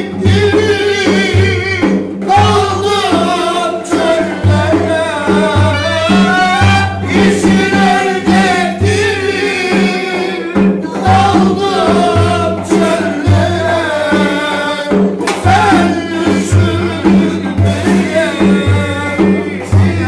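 Live Turkish folk dance tune (oyun havası). Men sing over a strummed cümbüş and a hand drum, and the drum beats a steady, even rhythm.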